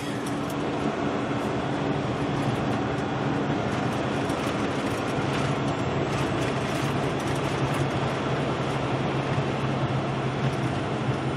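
Steady engine drone and tyre and wind noise heard inside a truck cab cruising at highway speed, with the low engine hum growing stronger about five seconds in.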